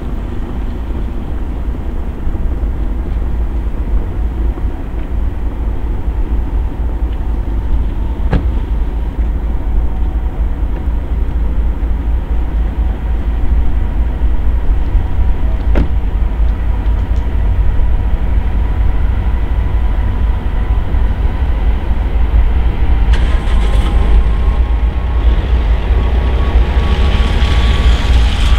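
Diesel engine of a DB class 232 'Ludmilla' locomotive running with a deep, steady rumble that grows louder about halfway through. A thin whine slowly rises in pitch over the last few seconds.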